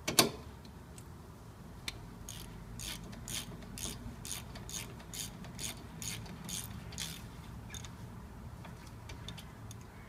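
A ratchet with a 7 mm Allen socket tightening the front brake caliper guide pins of a 2003 Volkswagen Transporter: a sharp metallic clack right at the start, then from about two seconds in a run of brief ratchet clicks, two or three a second, as the handle is swung back and forth, stopping about seven seconds in.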